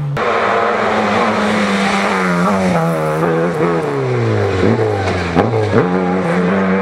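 Rally-prepared Lada 2105's engine running hard under load; about four seconds in the engine note falls, then jumps back up sharply twice, like downshifts with throttle blips.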